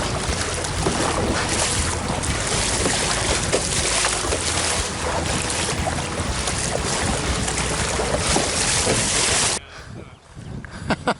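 Strong wind blasting over the microphone with choppy water against a kayak on a windy lake. The noise cuts off suddenly a little before the end, leaving it much quieter with a few short knocks.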